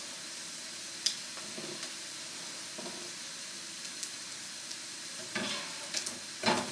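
Square sausage slices sizzling steadily as they fry in the fat that cooks out of them in a non-stick frying pan, with a few clicks and scrapes of a spatula in the pan, the loudest near the end.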